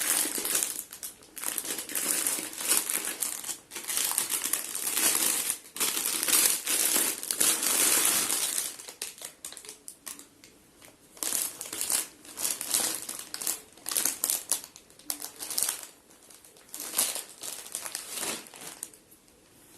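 Packaging crinkling and rustling as a newly delivered lehenga is unwrapped by hand. It goes on steadily for the first half, then comes in short separate bursts.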